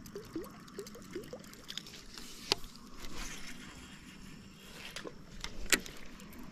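Faint trickling and lapping of water, with a few short low rising chirps in the first second and two sharp clicks, one about two and a half seconds in and one near the end.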